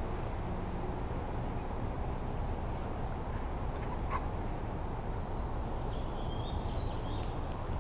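Puppies whimpering faintly: a short squeak about halfway through and a thin high whine near the end, over a steady low rumble.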